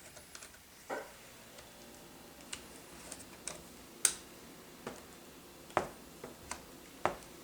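Scattered light clicks and taps of a screwdriver and hands going over the mounting screws of a laptop screen to make sure they are tight, with one sharper click about four seconds in.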